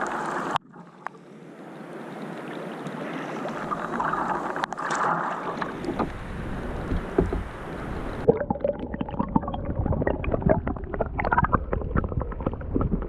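Water sounds from a kayak on a lake in pouring rain. There is steady splashing and gurgling, then, from about eight seconds in, a dense patter of many small taps.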